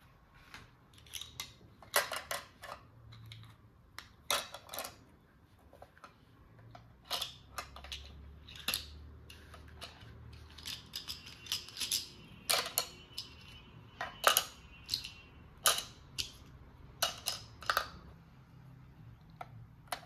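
Irregular sharp clicks and taps of small plastic toy pieces being handled, some in quick pairs, over a faint low hum.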